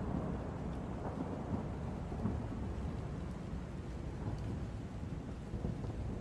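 Low rumbling noise that slowly fades.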